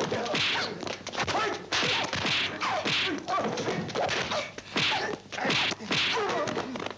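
Dubbed kung fu film fight sound effects: a rapid run of sharp whacks of blows, about two a second, mixed with swishes of swung limbs.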